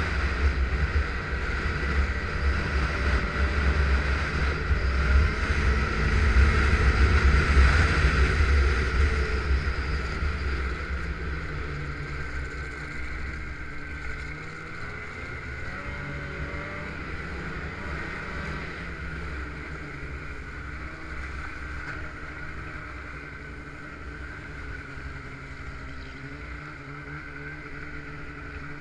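Snowmobile engine running at speed, heard from on the sled. The sound gets quieter after about ten seconds as the sled eases off and slows.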